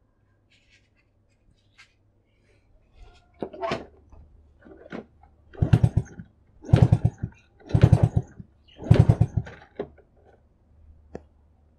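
Underbone motorcycle being kick-started again and again, about once a second, four hard kicks in a row, the engine turning over each time without catching: the tank is out of petrol.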